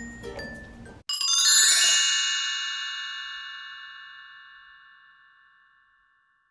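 Light background music cuts off about a second in. A bright chime sound effect follows: a cluster of bell-like tones struck together, ringing out and fading slowly over about five seconds.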